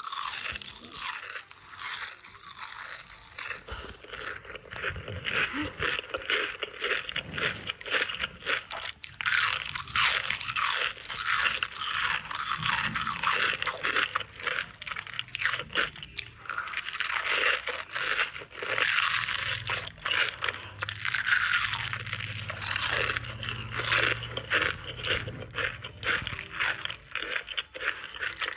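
Crispy fried onion rings being bitten and chewed close to the microphone: continuous, dense crackly crunching.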